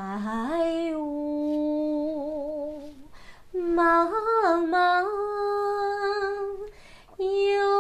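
A woman singing unaccompanied in a trained, legato style. She slides up into a note held with vibrato for about three seconds, takes a short break, sings a phrase that steps up and down into another long held note, and starts a new held note near the end.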